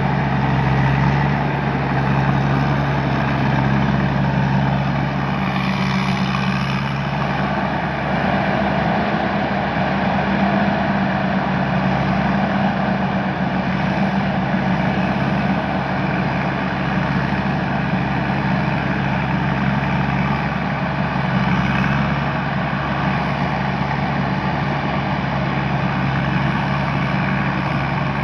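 Tamco S9000 combine harvester running steadily, its Isuzu 6HK1 six-cylinder diesel engine holding an even speed.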